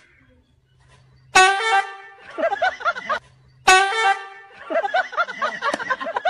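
Comic sound effect played twice: a sudden horn-like blast that fades quickly, then a run of rapid laughter.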